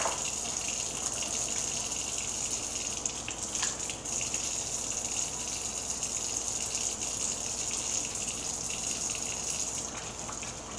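Kitchen sink faucet running steadily, the water splashing over hands as flour is rinsed off them.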